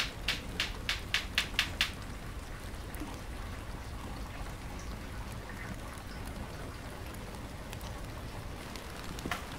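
A quick run of light clicks, about four a second, from hand tools and small parts being worked at the pivot of a model excavator's arm. The clicks stop about two seconds in, leaving a faint steady hiss, and one more click comes near the end.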